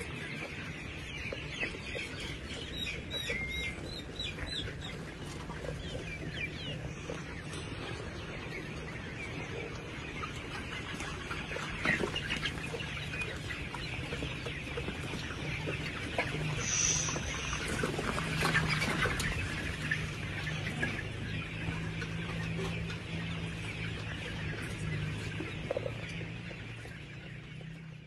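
A large flock of chickens clucking and calling together in a continuous chorus, with a few louder calls standing out now and then. A steady low hum runs underneath.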